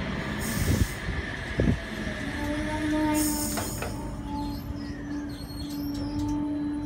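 NSW TrainLink Oscar H-set electric train moving slowly along the platform, its wheels and running gear rumbling, with two knocks in the first two seconds. From a couple of seconds in, a steady electric whine joins the rumble.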